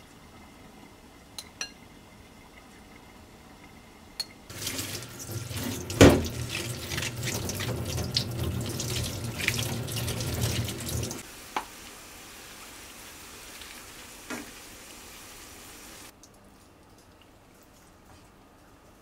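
Kitchen tap running and splashing over a bunch of leafy greens being washed by hand, the water falling into a stainless steel bowl in the sink. The water starts about four and a half seconds in after a few light clicks, splashes loudly for about seven seconds, then drops to a fainter steady hiss.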